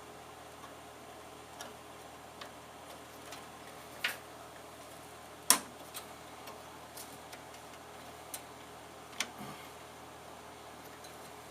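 Scattered light clicks and knocks of computer parts being handled inside a desktop tower, about seven in all and unevenly spaced, the sharpest about five and a half seconds in.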